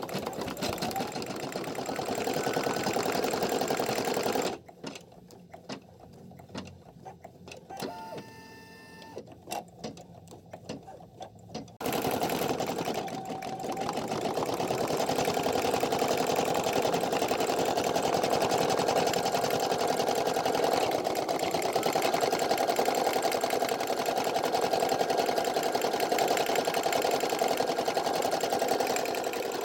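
Brother PE800 embroidery machine stitching a patch, its needle running steadily. After about four seconds it stops for several seconds, with only faint clicks heard. It then starts up again and stitches steadily to the end.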